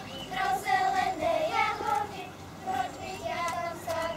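Group of girls singing a Czech folk song together in one melody line, with held notes.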